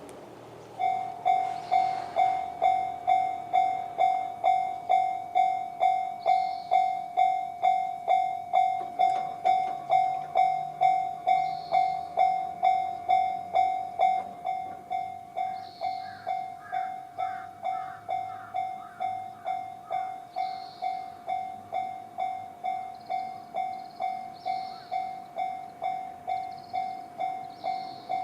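JR standard electronic level-crossing alarm ringing: a single steady tone struck just under twice a second, starting about a second in and stepping down in volume about halfway through.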